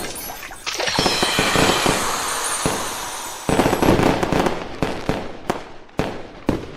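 Fireworks sound effect: a dense crackling volley starts about half a second in and swells louder about three and a half seconds in. It then thins out into separate sharp bangs and pops that fade away.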